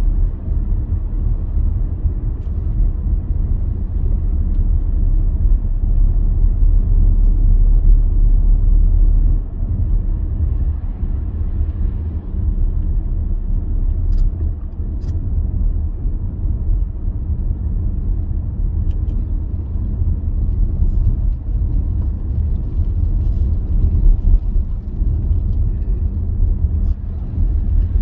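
Vehicle driving along a road, with a steady low rumble of engine and tyre noise.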